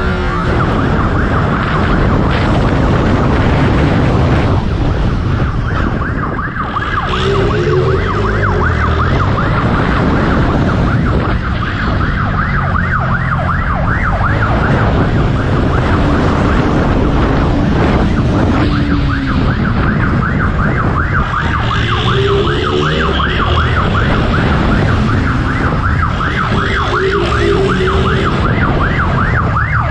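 Police siren sounding in a fast warbling yelp without a break, over loud engine and road noise. An engine revs up and down a few times underneath.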